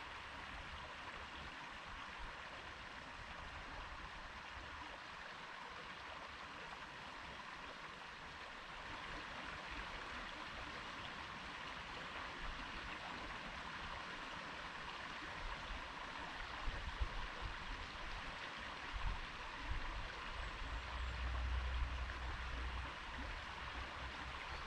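Stream water flowing and rushing over stones in a steady, even wash. Bursts of low rumble come and go beneath it, strongest in the second half.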